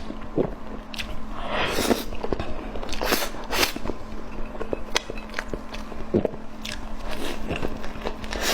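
Close-miked eating: repeated bites and chewing, with crisp crunching clicks and a few longer wet, smacking sounds.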